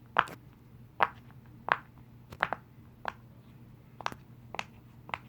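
Silicone pop-it fidget toy having its bubbles pressed one by one on its good side: about nine sharp pops at uneven intervals, roughly one every half second to second.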